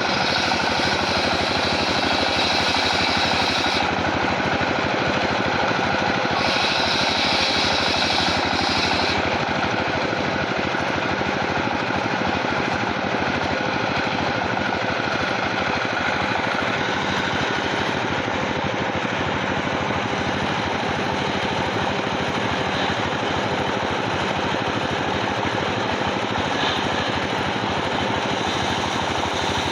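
Sawmill machinery running steadily with a dense, rapid mechanical rattle. A higher hissing whine comes in for the first few seconds and again for a couple of seconds a little later.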